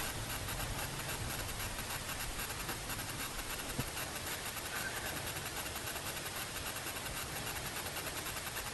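Steady rush of wind and water aboard a racing sailboat under way, with one faint click about four seconds in.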